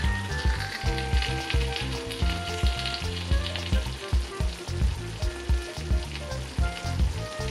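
A pan of creamy, cheese-topped eggplant pasta sizzling as a spoon lifts out a portion. Under it runs background music of short held notes over a regular low beat.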